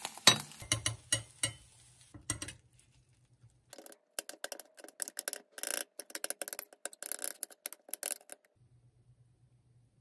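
Metal fork clicking and scraping against a nonstick frying pan while handling a rolled omelette, the sharpest click about a quarter second in. After a short pause comes a quick run of taps and scrapes on a ceramic plate as the omelette is cut into pieces, which stops shortly before the end.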